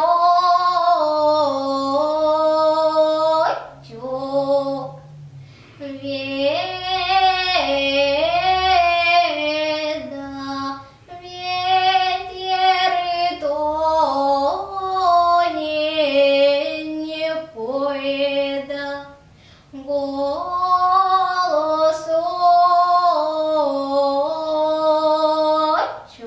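A single high voice singing a Russian children's song about the wind, in sung phrases of a few seconds separated by short breaths, with no instruments standing out.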